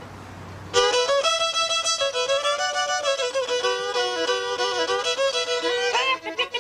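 Fiddle bowed in a quick run of notes that starts abruptly just under a second in.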